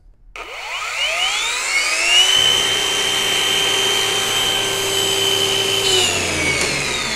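Boda twin-blade brushless wall chaser switched on, its motor and two diamond blades spinning up gradually over about two seconds under its soft start, then running steadily with a high whine. About six seconds in the power is cut and the machine winds down with falling pitch.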